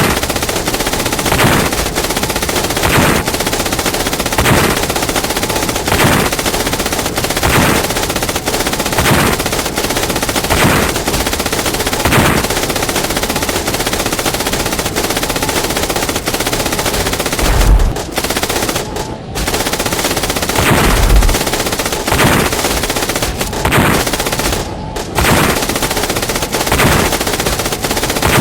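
Sustained, rapid MG42 machine-gun fire, with louder single rifle shots about every second and a half. Two deep grenade explosions come about two-thirds of the way through, a few seconds apart.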